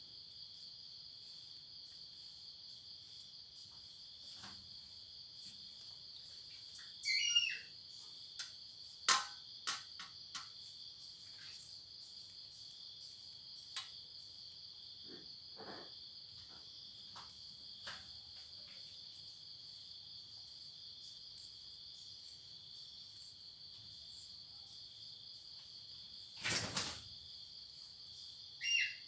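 Steady high-pitched chirring of night insects, heard as two even tones that run on without pause. Scattered soft clicks and brief sharp sounds break in, the loudest a short noise near the end.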